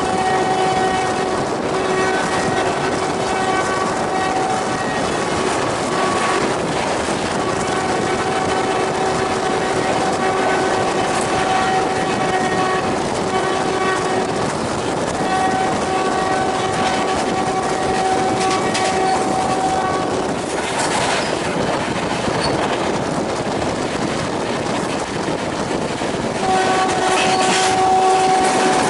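WAM 4 electric locomotive sounding its horn in long, repeated blasts, one steady tone, while an express train runs past at speed with a constant rumble and clatter of wheels on the rails. About twenty seconds in the horn stops for several seconds and only the wheel clatter is heard, then the horn sounds again near the end.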